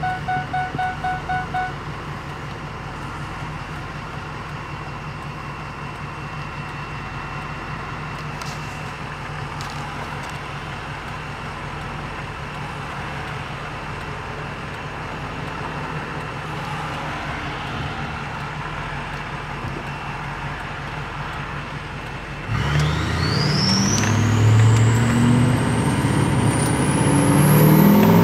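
Ford F350 diesel pickup engine idling with a faint steady turbo whine; about 22 seconds in it is revved, and the turbo whistle climbs steeply in pitch as the turbo spools up. A pulsing chime sounds for the first couple of seconds.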